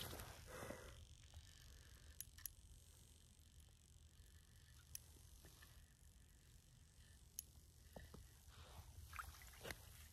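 Near silence: a faint low background rumble with a few faint, isolated clicks.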